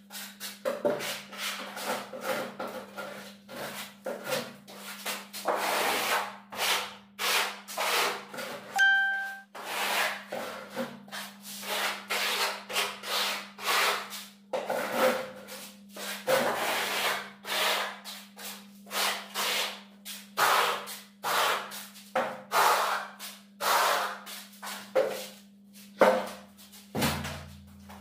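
Steel plastering trowel scraping over bark-beetle texture decorative plaster on a wall, in repeated rasping strokes about two a second, with a dull knock near the end.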